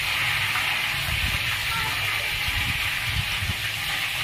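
Potato slices deep-frying in hot oil in a small pan, a steady loud sizzle.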